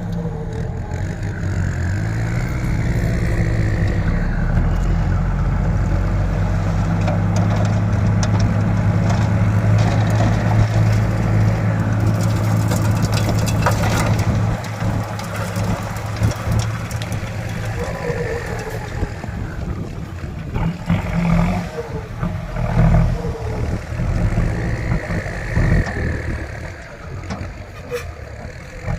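Kubota M6240 tractor's diesel engine running steadily at working revs, then easing off about halfway through to a lower, less even running sound.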